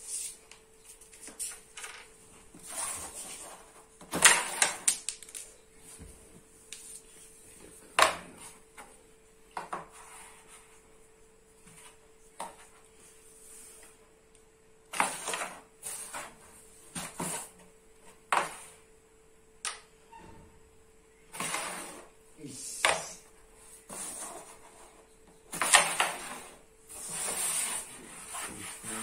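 Carrom striker flicked across a wooden carrom board, with sharp clacks as it hits the coins and the coins knock into each other and the board's frame. The clacks come in short clusters every few seconds.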